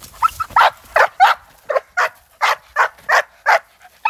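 Young dog barking rapidly and loudly, about three sharp barks a second, at a decoy in a bite suit: the bark-and-hold alert after a search command in protection training.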